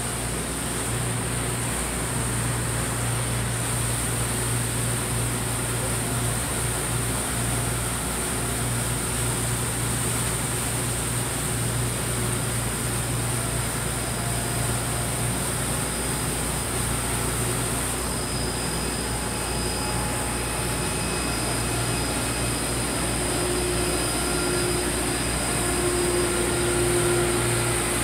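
Motor yacht's engines running at a steady cruise, a constant low drone heard from inside the cabin. A fainter, higher hum comes in near the end.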